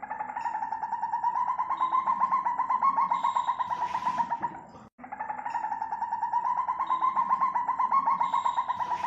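African civet call: a fast, pulsing call that rises a little in pitch over about five seconds, stops abruptly, then comes again the same way.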